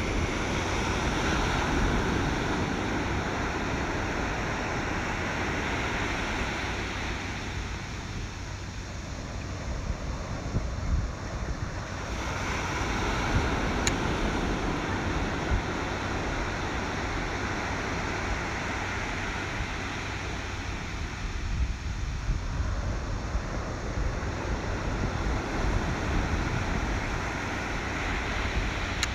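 Ocean surf washing in slow swells that rise and fade every ten seconds or so, with wind rumbling on the microphone.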